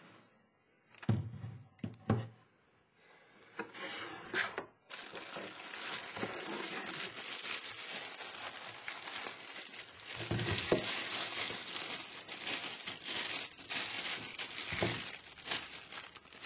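Two knocks about one and two seconds in, then plastic bag wrapping crinkling and rustling steadily as it is handled, with a few thumps among it.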